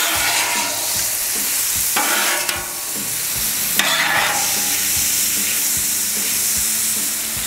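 Diced steak sizzling on a hot steel Camp Chef flat-top griddle under a steady hiss. Metal spatulas scrape across the griddle in three short strokes, near the start, about two seconds in and about four seconds in, with a few light taps of metal on metal.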